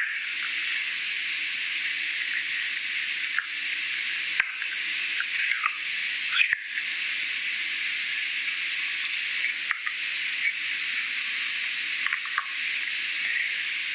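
Steady hiss throughout, with a few faint taps and scrapes as semolina is sprinkled and a dough ball is handled on the work surface.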